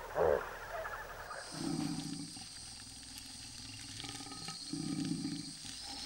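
Leopard cubs giving two low growls about three seconds apart, over a steady high insect drone. A brief louder sound comes right at the start, before the growls.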